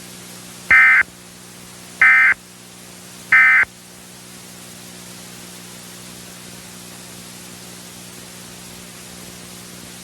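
Emergency Alert System end-of-message (EOM) SAME data bursts: three short bursts of warbling two-tone digital data, each about a second apart, signalling that the alert is over. A steady hiss with a low hum runs underneath and carries on after the bursts.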